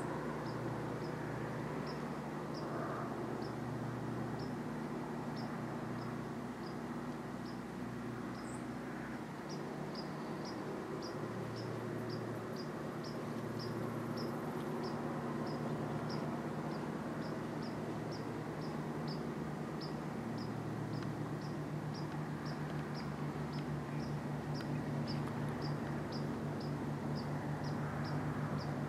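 A cricket chirping steadily, about two short chirps a second, over a steady low background hum and hiss.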